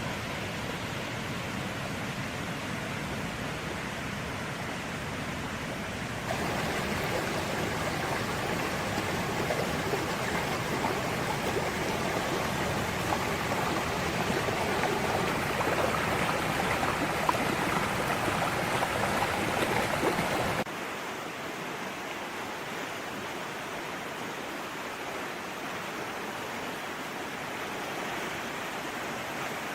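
Steady rushing of running water. It turns louder and brighter about six seconds in, then drops back suddenly about two-thirds of the way through.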